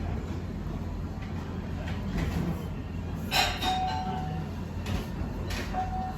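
Ramen shop background noise: a steady low hum, with a clatter of dishes about three seconds in and two short ringing tones, one after the clatter and one near the end.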